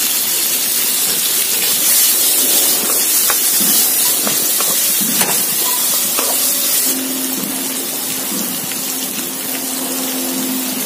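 Battered prawns sizzling in hot oil in a wok with chopped red peppers, chilies and garlic, a steady hiss with scattered taps and scrapes of a wooden spatula as they are stir-fried. The sizzle eases slightly about seven seconds in.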